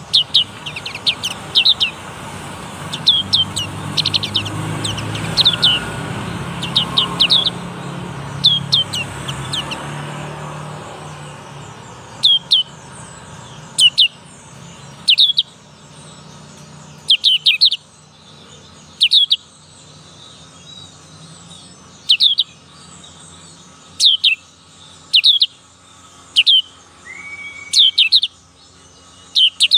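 Young black-capped white-eye still learning its song, giving short, high, downward-slurred chirps in quick groups of two to four, repeated every second or two. A low rumble underneath fades out over the first ten seconds or so.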